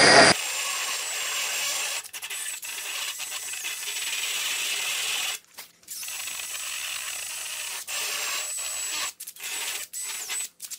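Cordless Makita drill spinning a carbide rotary burr, grinding bark and loose wood out of a knot to prepare it for filler. The motor runs with a thin high whine and stops briefly twice, about five and a half seconds in and again near the end.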